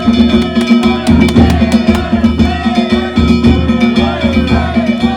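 Danjiri float's narimono: a big taiko drum beating a steady rhythm, with metal hand gongs ringing over it.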